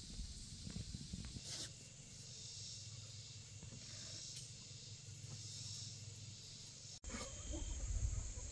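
Faint outdoor yard ambience: a steady high insect drone that swells and fades, over a low wind rumble on the microphone.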